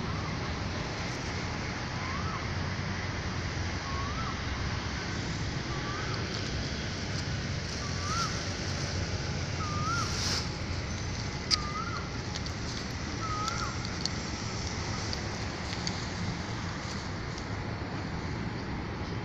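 Steady outdoor rush of wind and distant traffic. Over it comes a short rising chirp, seven times about two seconds apart, then stopping, and there is one sharp click about halfway through.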